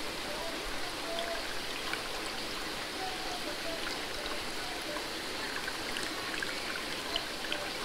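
Steady running and trickling water in a trout hatchery tank, where a hose is siphoning the fry out.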